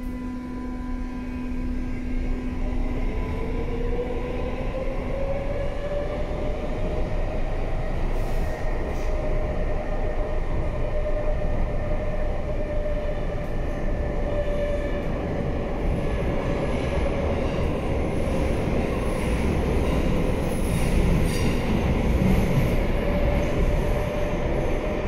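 Madrid Metro 5000-series (4th batch, CAF) subway car heard from inside as it pulls away and speeds up. A motor whine rises in pitch over the first few seconds and then holds steady, over a rumble of wheels on rail that grows louder. There are a few brief squeaks from the wheels.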